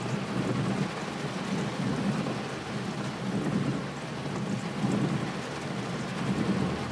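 Rain drumming on a car's roof and windscreen, heard from inside the cabin: a steady, low rushing noise without break.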